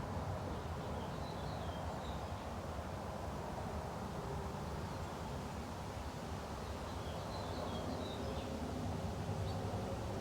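Outdoor garden ambience: a steady low background rumble with faint bird chirps, once about a second in and again around seven to eight seconds in.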